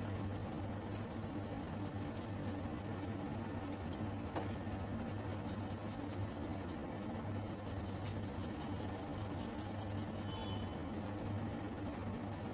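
Felt-tip sketch pen tapping and stroking short dots onto paper in an irregular run of faint ticks, over a steady low hum.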